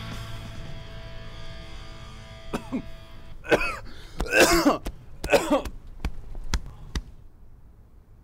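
A background music track fades out, then a person coughs in a few loud bursts. Soft, regular knocks follow, about two a second.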